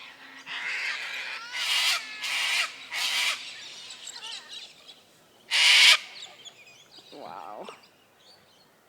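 Cockatoos screeching: a quick run of four harsh calls in the first few seconds, then one louder screech about halfway through, followed by a fainter, wavering call.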